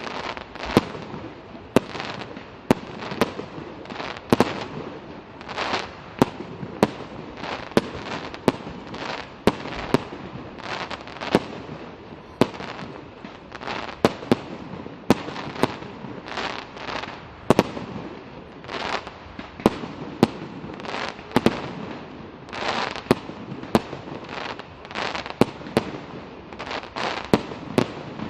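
Fireworks going off: a rapid, uneven string of sharp bangs, one or two a second, with rushing noise between them.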